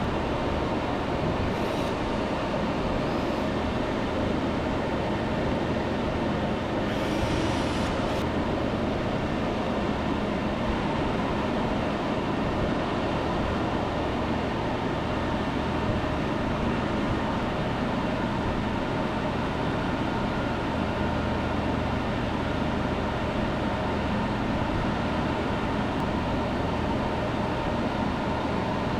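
Steady, loud whir of running fans with a faint steady whine, unchanging throughout; a brief scrape or rustle about seven seconds in.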